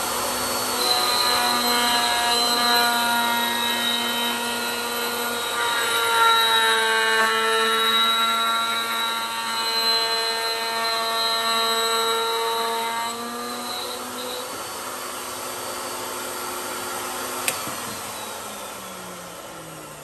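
Router motor whining steadily as it spins a chamfer bit, with the bit cutting a chamfer into the inside edge of an aluminum ring. It is loudest over the first two-thirds, then quieter, and near the end there is a single click as the whine fades away.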